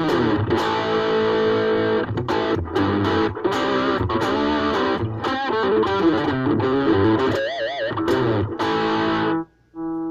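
Ibanez AXS42 electric guitar fitted with a vintage tone capacitor, played as a run of single notes. About seven and a half seconds in a held note wavers with vibrato; the playing stops near the end, followed by one short, quieter note.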